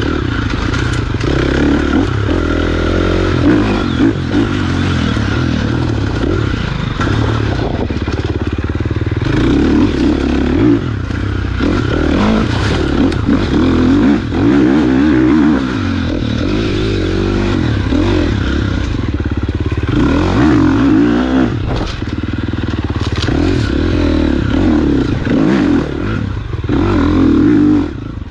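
Dirt bike engine revving up and down repeatedly as the rider accelerates and backs off along a tight trail, heard from a helmet camera.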